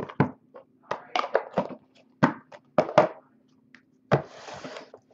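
Hard plastic card cases being handled: a string of sharp taps and thunks as the encased cards are picked up and set down, then a brief rustling slide about four seconds in.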